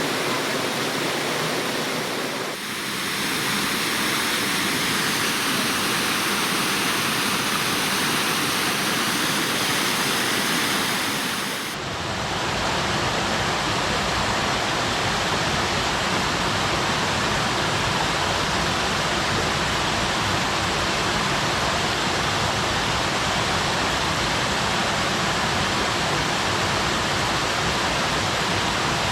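Waterfall water falling and splashing: a steady, dense rush. Its tone shifts abruptly twice, about two and a half seconds and about twelve seconds in.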